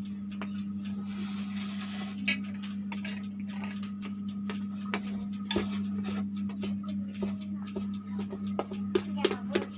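Fork tines clicking against a baking tray as a pizza base is pricked full of holes, scattered taps at first and then a quick run of taps near the end, over a steady low hum.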